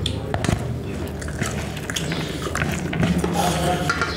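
People eating rice and side dishes with their hands: chewing and mouth noises, with scattered small clicks.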